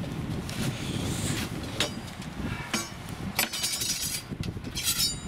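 A few sharp knocks and clinks, then two short rattling clatters, as things are handled and set up on a table, over a low rumble of wind on the microphone.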